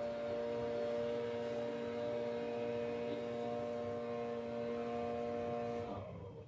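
A steady hum of several held tones that cuts off suddenly about six seconds in.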